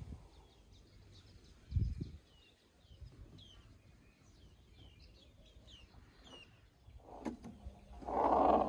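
Small birds chirping in the background in a run of quick short chirps. There is a low thump about two seconds in, and a louder burst of noise near the end.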